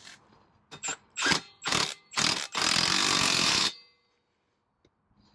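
Milwaukee cordless impact tool tightening a dirt bike's front axle nut: four short blips, then a steady run of about a second that stops suddenly as the nut snugs down.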